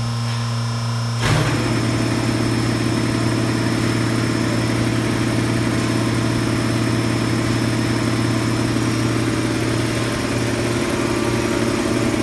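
A steady electrical hum, then about a second in an industrial machine's motor starts with a clunk and runs on as a fast, even, pulsing drone.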